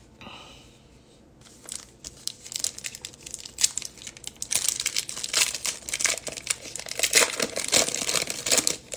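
Shiny plastic wrapper of a baseball card pack being torn open and crinkled by hand. The crackling starts about a second and a half in, gets louder past the middle and stops just before the end.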